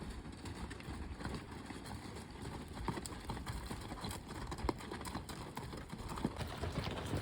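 Footsteps on a rocky dirt trail: irregular crunching and clacking steps with a low steady rumble beneath.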